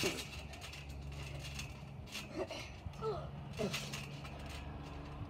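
Trampoline thuds and rasping creaks as kids drop onto and bounce on the mat, with a few short vocal grunts, over a steady low hum.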